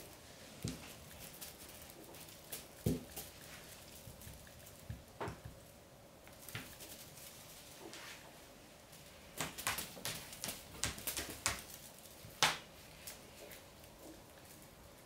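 Scattered light taps and rustles from a feather wand toy being waved and swatted at by a cat, with a quick run of clicks about ten to twelve seconds in.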